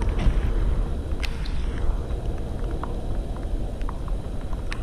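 Rain falling, with a steady low rumble of wind buffeting the microphone and scattered light taps.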